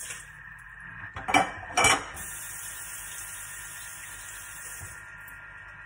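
Thermomix TM6 motor running steadily at speed 3, mixing melted chocolate glaze. Two loud clatters of crockery come about 1.3 and 1.9 seconds in. A tap runs from about 2 seconds in and is shut off suddenly near 5 seconds, as hands are rinsed.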